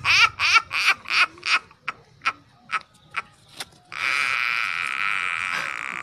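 A woman laughing helplessly in quick, rhythmic pitched bursts that slow and fade into short gasps over the first few seconds. About four seconds in, a steady hiss sets in and holds for about two and a half seconds.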